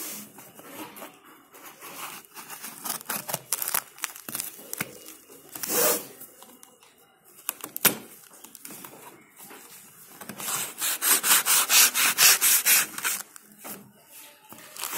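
Cardboard shipping box and its packing tape being worked open by hand: scattered scraping and rubbing on the cardboard, then about ten seconds in a loud run of quick rasping strokes, about four a second, for some three seconds.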